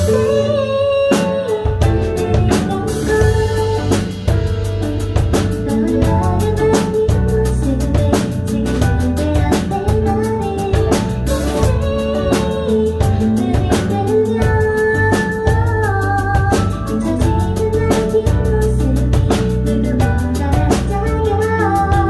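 A woman singing a Korean pop ballad live into a microphone, over a full backing of drum kit and bass; the low end drops out briefly about a second in, then the beat comes back in.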